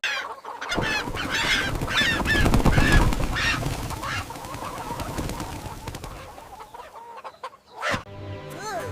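Cartoon poultry clucking and squawking, a quick run of calls over about three seconds, over a low rumbling noise that fades away. A few musical notes come in near the end.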